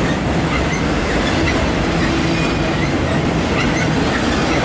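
Autorack freight cars rolling past close by: a steady, loud rumble and rattle of steel wheels on the rails, with a few brief high wheel squeaks.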